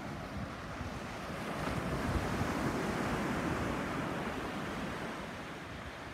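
Sea surf washing onto a sandy beach: the noise of the waves swells about two seconds in and eases off again near the end, with wind buffeting the microphone underneath.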